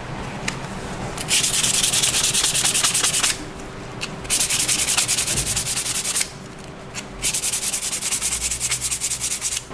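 A brush scrubbing rust off a steel clutch plate in rapid back-and-forth strokes: three bouts of about two seconds each, with short pauses between them.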